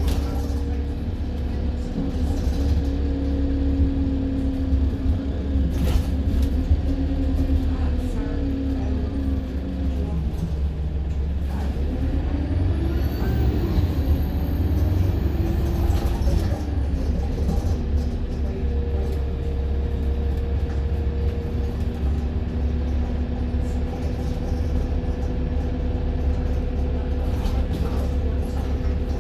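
Diesel engine of a London double-decker service bus heard from on board, a steady low drone. Its pitch sinks about ten seconds in as the bus slows, then climbs again as it pulls away, with a faint high whistle during the pull-away, before settling back to a steady run.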